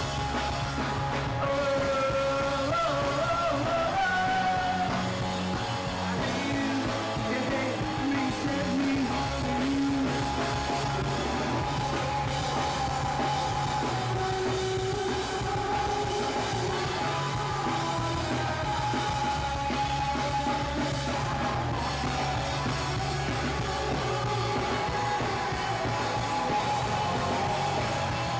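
Rock band playing: electric guitars and drum kit, with a man singing over them.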